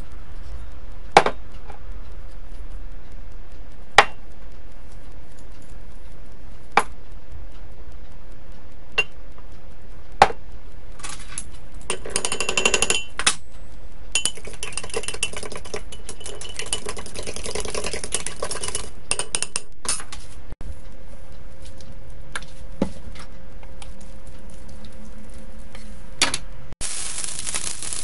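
Sharp clinks of a utensil against a glass measuring cup, then scratchy stirring as a fork whisks cornstarch into soy sauce and stock. Near the end a loud steady hiss from the hot wok begins.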